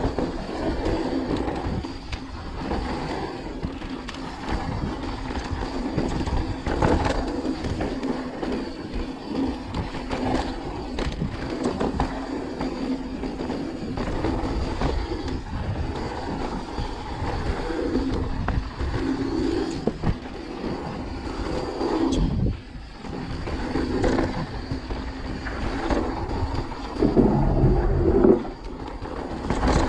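Mountain bike ridden fast down a dry dirt trail, heard from a camera on the rider: tyres rolling and crunching over dirt and loose stones, with the chain and frame rattling over bumps and wind on the microphone. Near the end it gets louder and clattery as the tyres roll onto a wooden boardwalk.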